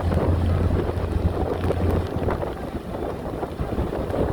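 Heavy machinery's diesel engine running with a steady low drone that drops away about two seconds in, with wind buffeting the microphone.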